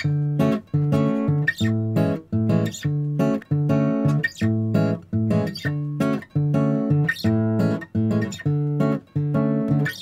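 Background music: an acoustic guitar playing chords in a steady rhythm, about three chords every two seconds.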